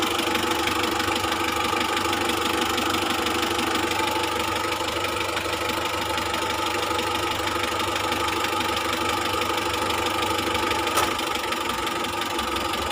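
Car heater/AC blower motor running with a steady hum after a blown 15-amp fuse was replaced; it is working again but moves no air. A single click about eleven seconds in.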